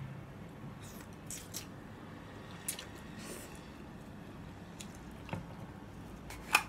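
Close-up mouth sounds of eating thin rice noodles: a short soft slurp about three seconds in and quiet chewing. Scattered light clicks throughout, and a sharper clack of utensils near the end.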